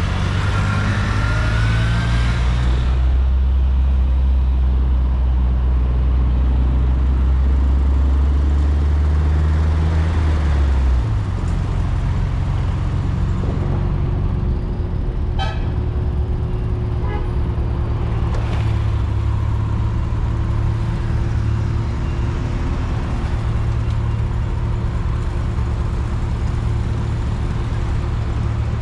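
1994 VW Gol's 1.6 L CHT engine running at road speed with tyre and wind noise, heard from outside the car. The deep engine drone changes about eleven seconds in, then runs on steadily.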